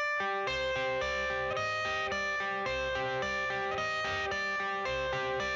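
Background music: a guitar-led instrumental intro with a steady beat, notes changing about every half second.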